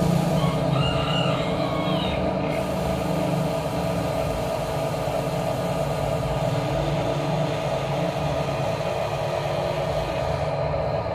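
Electric motors and plastic gearboxes of a toy RC excavator whirring steadily as it digs and swings its boom, the pitch shifting as the motors change speed. A rooster crows briefly in the background about a second in.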